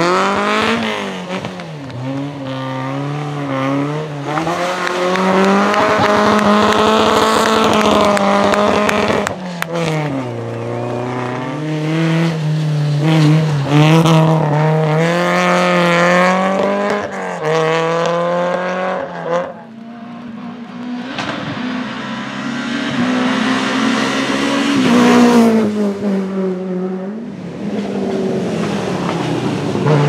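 Rally car engines driven hard at close range: a Peugeot 205 rally hatchback revving high, the pitch climbing and dropping with each gear change and lift. About twenty seconds in the sound dips briefly, then another rally car revs up as it speeds past.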